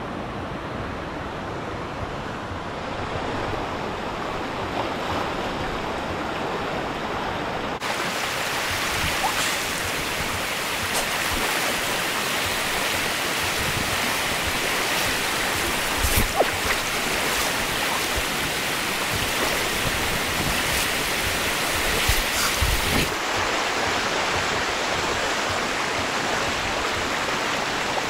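Shallow rocky creek rushing steadily over stones, growing louder after about eight seconds, with a few brief knocks around the middle and later on.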